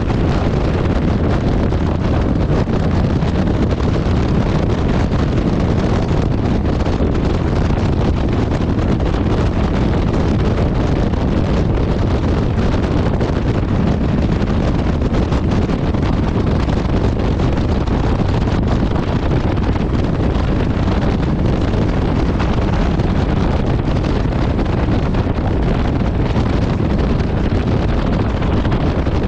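Steady wind noise buffeting the microphone of a moving motorcycle, with the Kawasaki VN1600 Mean Streak's V-twin engine running underneath at cruising speed.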